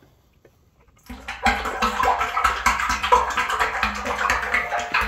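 Hydraulic oil pouring in a stream from a tipped five-gallon pail through its spout into the Volvo EC480D excavator's hydraulic tank, starting about a second in, as the tank is refilled.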